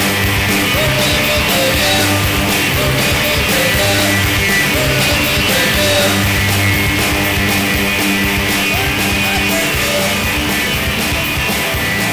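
Rock band music with drums keeping a steady beat over sustained bass notes.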